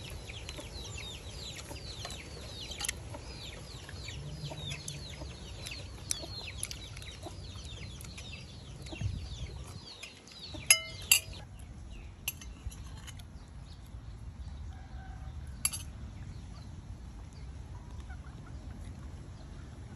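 Chickens chirping rapidly, with many short, high, falling peeps through the first half. About eleven seconds in comes a sharp double clink of a metal spoon on a ceramic plate, and another clink follows near the end.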